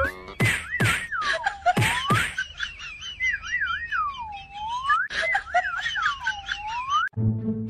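Cartoon-style whistle sound effect: a warbling whistle that swoops down and back up again and again, with quick sharp pops and clicks scattered through it. It breaks off abruptly near the end, giving way to a lower ringing tone.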